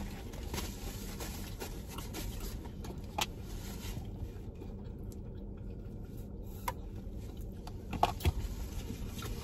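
Steady low hum inside a parked car's cabin, with a few short clicks and light rustling as food, a napkin and a ketchup packet are handled while eating.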